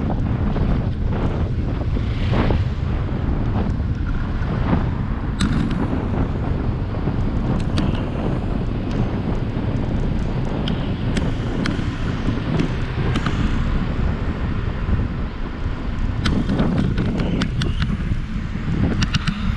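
Wind buffeting the microphone of a GoPro Hero 7 Black on a moving bicycle: a steady, heavy low rumble, with a few sharp clicks and rattles scattered through it.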